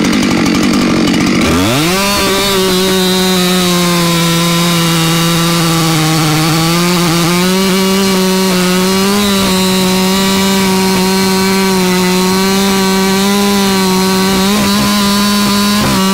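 Husqvarna 592XP two-stroke chainsaw cutting through white oak at full throttle. About a second and a half in the engine note drops away and climbs straight back up, then holds high and steady, sagging slightly now and then under the load of the cut.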